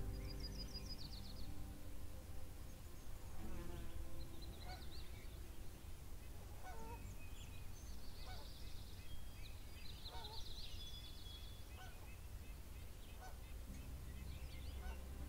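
Wild birds calling: a scattered series of short honking calls, with bursts of higher trilled chirps from small birds, over a steady low rumble.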